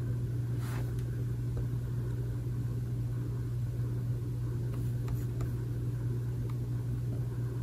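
Steady low hum with a few faint, short clicks.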